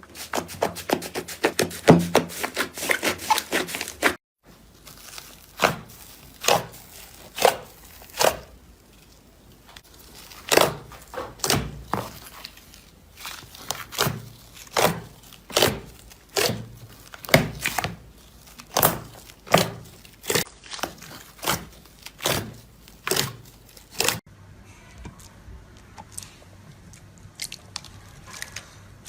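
Slime being squeezed and poked: first a fast run of crackling clicks, then, after a sudden cut about four seconds in, separate sharp pops and clicks about once a second.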